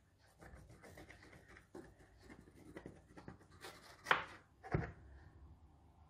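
Knife blade scraping along the sides of a metal baking pan and cutting through a freshly baked cornmeal cake: faint, scattered scraping, with two sharper clicks about four seconds in.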